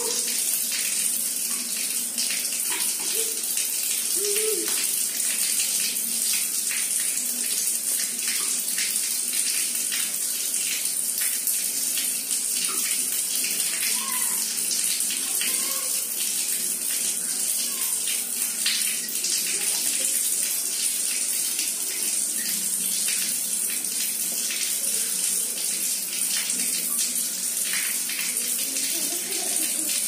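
Water from a wall tap running in a thin stream and splashing steadily onto a tiled floor in a small bathroom, a constant hiss full of small splashes.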